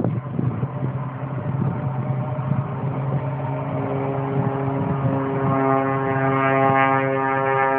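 Cessna 185 Skywagon in flight overhead, its engine and propeller giving a steady drone. The drone grows louder and more clearly pitched over the second half as the plane comes nearer. Wind gusts on the microphone are heard at the start.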